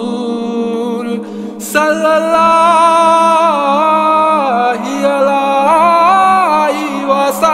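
Voice singing a Bangla Islamic gojol melody in an a cappella style over a steady low held drone. The melody fades about a second in and comes back stronger about two seconds in.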